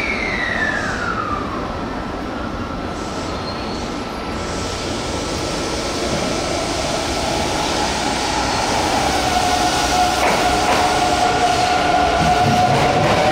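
Electric train running with a steady rumble. A traction-motor whine falls in pitch over the first second or so. Another whine rises slowly near the end as the train gets louder.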